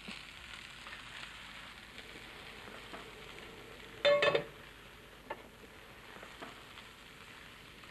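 Veal escalopes frying in a pan, a steady faint sizzle, with a brief ringing clank about four seconds in.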